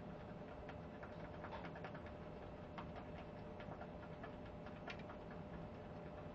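Boar-bristle shaving brush whipping soap into a lather in a bowl: faint, irregular ticking and clicking of the bristles against the bowl.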